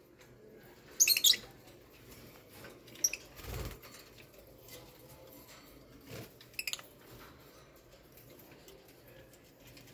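Lovebirds giving a few short, high, squeaky chirps, the loudest about a second in and others around three and six and a half seconds, with faint fluttering and a soft low thump about three and a half seconds in.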